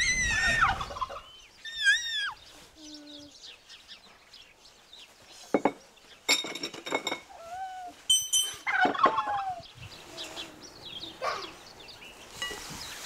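Farmyard poultry calling: a loud arched call right at the start, a shorter one about two seconds in, then more scattered calls through the rest.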